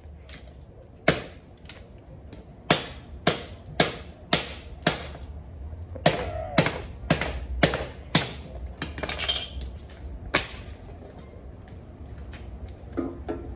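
Cutlass (machete) chopping dry firewood sticks laid on concrete: about a dozen sharp chops, many in quick runs about half a second apart, the last about ten seconds in.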